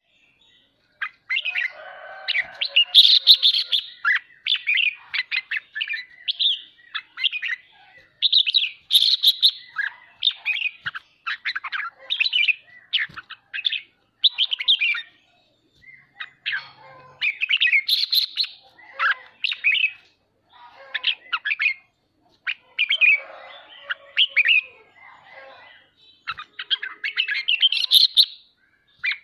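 Red-whiskered bulbul giving its fast, excited 'ché' chatter mixed with song phrases, in repeated bursts with short pauses between them.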